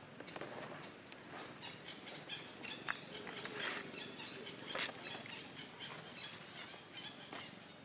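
Irregular rustling and crackling of dry leaves and twigs as baby macaques scuffle and wrestle on the ground. The busiest stretch comes around the middle, with faint high chirps between the rustles.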